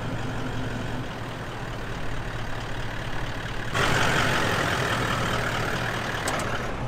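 A vehicle engine running steadily with a low hum. About four seconds in, a louder rush of noise joins it.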